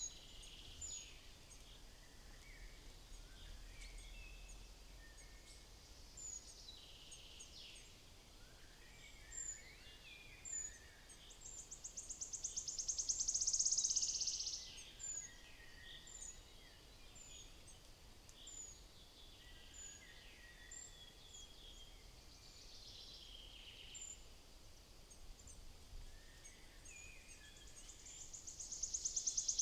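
Small songbirds calling and singing: a steady scatter of short, high chirps, with a fast trill of rapidly repeated notes that swells loud twice, about twelve seconds in and again near the end.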